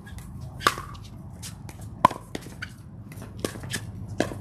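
Pickleball paddles striking the hollow plastic ball back and forth in a rally: a string of sharp pops at uneven intervals, with the two loudest about a second and a half apart early in the rally and fainter hits later.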